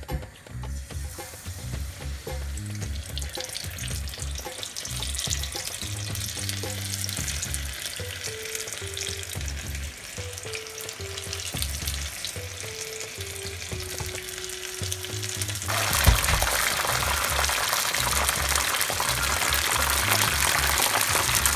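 Batter-coated chicken pieces deep-frying in hot oil: a steady sizzle that turns suddenly much louder about three-quarters of the way through. Background music plays underneath.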